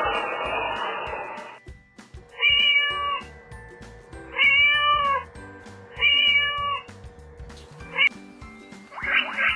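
A kitten meowing three times, about a second and a half apart, each meow rising and then falling in pitch, over background music with a steady beat.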